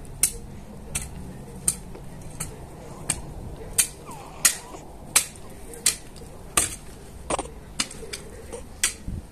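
Metal hoe blade chopping into soil in steady, repeated strokes, about one and a half sharp strikes a second.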